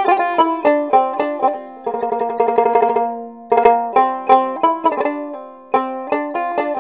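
Background music: a quick plucked-string tune, banjo-like, played as separate bright picked notes with short pauses.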